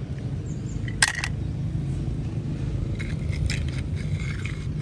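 Die-cast toy cars handled by hand over a steady low outdoor rumble: a sharp click about a second in, then light clicks and scrapes as a toy car is pushed across rock.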